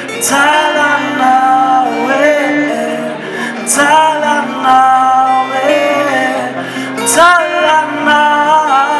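A singer sings a song in Swahili into a microphone, with long held notes, accompanied by a strummed acoustic guitar, heard live through the PA.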